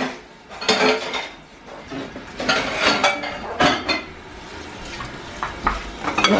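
Dishes and cutlery clinking and clattering at a kitchen sink as they are washed, in irregular knocks and short rattles.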